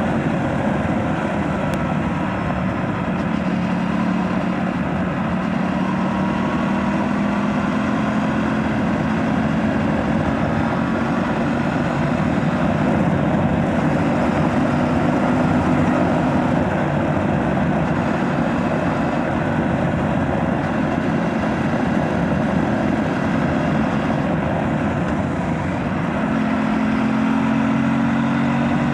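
Aprilia RS 457's parallel-twin engine running through its stock exhaust while riding, the pitch rising slowly over the first few seconds, then holding steady, and shifting to a new pitch near the end over a steady rush of noise.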